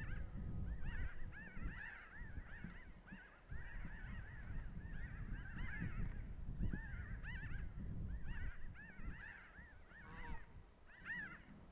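A flock of birds calling: many short, nasal, arched calls overlapping one another continuously, over a low rumble that eases off near the end.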